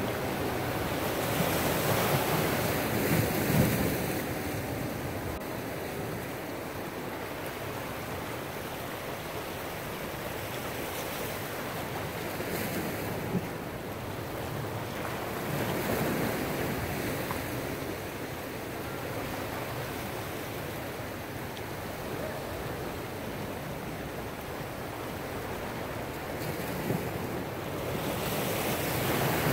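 Sea surf washing against shoreline rocks, a steady rush that swells louder a few times as waves come in, with some wind on the microphone.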